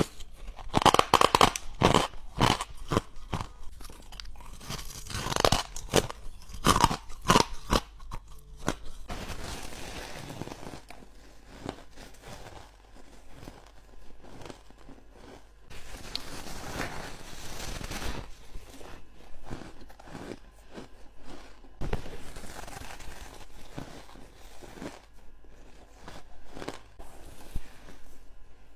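Hard ice being bitten and crunched between the teeth, close to the microphone: a fast run of loud, sharp crunches for the first eight seconds or so, then softer chewing of the crushed ice with occasional crunches.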